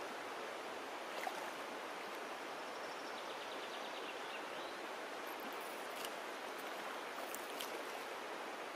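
Steady rush of a shallow stream running over stones, with a few faint clicks.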